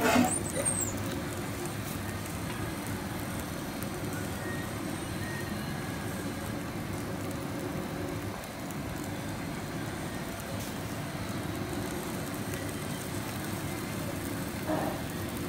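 An electric contact grill's lid shutting with a short clank and a brief squeak right at the start, then a steady low hum of kitchen machinery noise.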